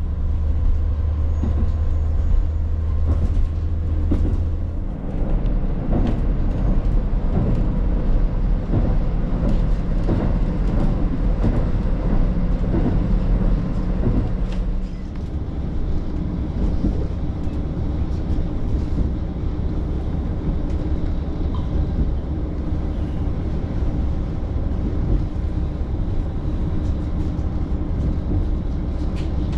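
JNR KiHa 40 diesel railcar running on the line, with a continuous low engine drone and faint rail clicks. The engine note changes about five seconds in and again around fifteen seconds in.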